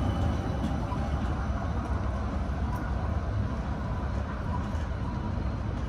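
Light rail tram running along street track as it draws away after passing close by, a steady low rumble of its motors and wheels on the rails.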